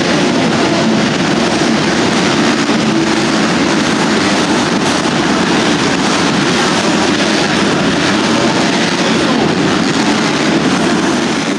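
Several motocross bikes racing round an indoor supercross track, their engines blending into a loud, steady drone that fills the arena.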